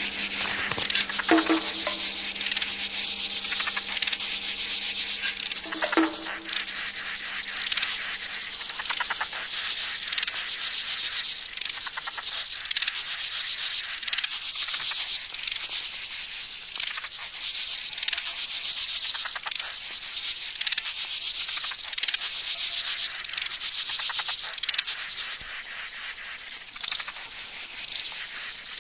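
Insect chorus ambience: a dense, steady high-pitched hiss with fine rapid crackling, and two brief low tones about a second and six seconds in.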